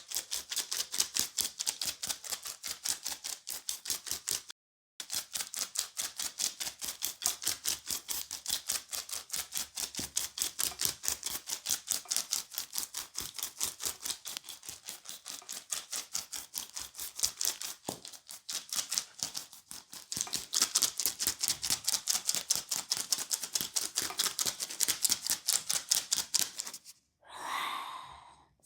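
Rapid percussive hand tapping on a leg during massage: quick even slaps at about four to five a second, with a brief pause about five seconds in and stopping shortly before the end.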